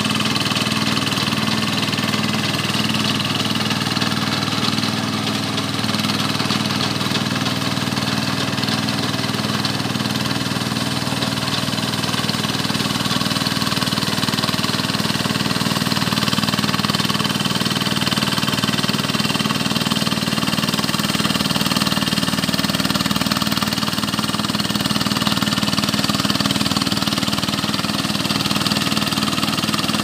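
Single-cylinder Kubota 11.5 hp diesel engine of a small rice combine harvester running steadily while it harvests.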